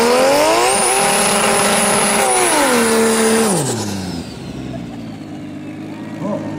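Toyota Mark II drag car's 1JZ/2JZ hybrid engine revved hard and held at high revs during a burnout, the rear tyres spinning to warm them. The revs drop about three and a half seconds in.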